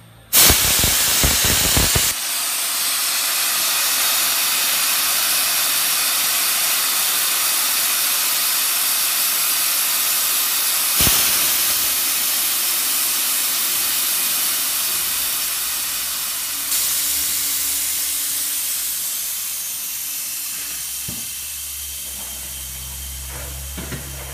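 Compressed natural gas hissing out under high pressure through the manually opened valve on a DAVY MF-50 CNG compressor's outlet panel. It bursts on loudest for the first two seconds, then settles into a steady hiss that slowly weakens as the pressure falls.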